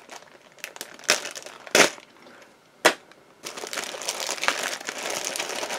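A plastic bag of model-kit parts being cut open and handled: three sharp clicks in the first three seconds, then continuous crinkling of the plastic from about halfway through.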